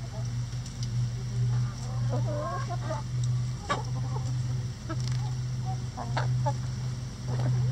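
Backyard chickens clucking softly while feeding, with a few sharp taps among the calls, over a steady low hum.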